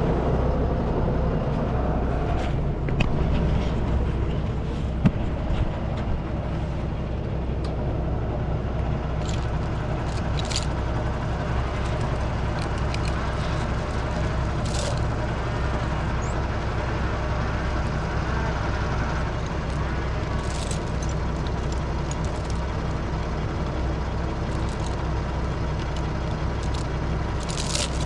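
Tractor diesel engine running steadily, with scattered short clicks and knocks over it.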